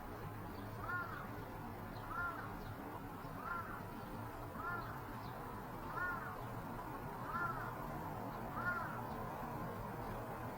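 A bird giving the same short arched call over and over, seven times at an even pace of about one call every 1.3 seconds.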